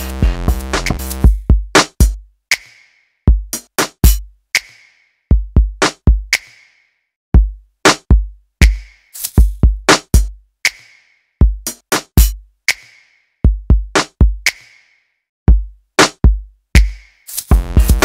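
Electronic background music: a sparse drum-machine beat of separate kick and snare hits with silent gaps between them, and fuller music at the start and again near the end.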